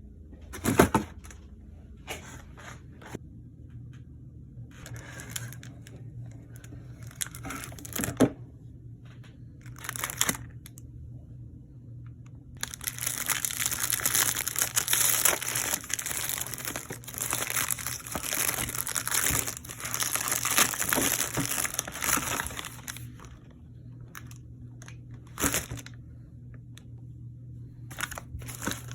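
Microwave popcorn packaging being crinkled and torn open by hand, in short bursts with a few sharp knocks, then about ten seconds of continuous crinkling in the middle.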